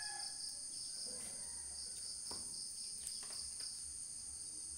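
Steady high-pitched insect chorus with a fast, regular pulse in one layer, faint beneath a few small clicks.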